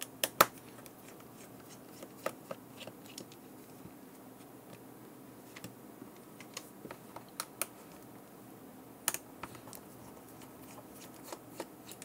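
Scattered small clicks and taps of a small T5 Torx screwdriver and tiny screws on the plastic back casing of a GPS unit, as the screws are backed out and set down and the unit is handled. The sharpest clicks come just after the start and about nine seconds in.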